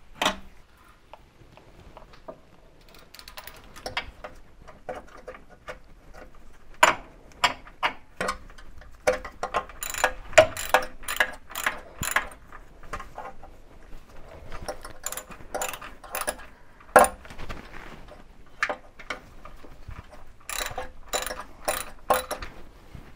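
Irregular metallic clicks, taps and clinks of hand work on stainless steel brake lines and their fittings, coming in clusters with short quiet gaps between.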